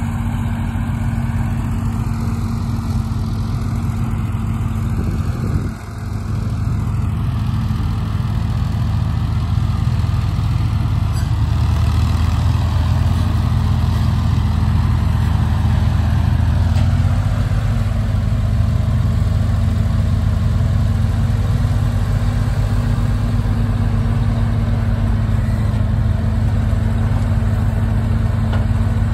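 Ford 4000 tractor engine running steadily as it carries the hay grapple, its low note shifting slightly about two thirds of the way through.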